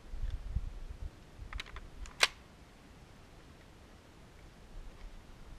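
Mechanical clicks of a Hi-Point JHP .45 ACP pistol being handled between shots: a few small clicks, then one sharp metallic clack about two seconds in. A low rumble comes in the first second.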